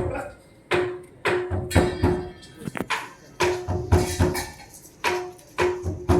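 Hand drum played in a lively rhythm, roughly two strokes a second, mixing deep booming strokes with sharper strokes that ring on a steady pitch.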